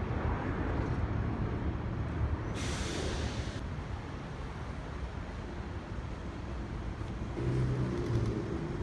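Motor vehicle running with a steady low rumble. About two and a half seconds in there is a hiss lasting about a second, and near the end the low hum grows stronger.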